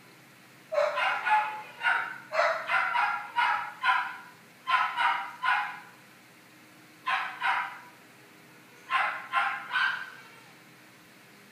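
A dog barking repeatedly, in runs of two to five barks with short pauses between.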